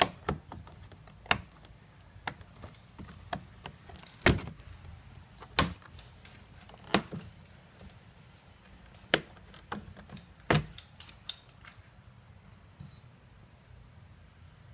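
Irregular sharp clicks and knocks of plastic interior trim being handled and pulled loose from a car's door panel, the loudest a little over 4 seconds in and again about 10 seconds in.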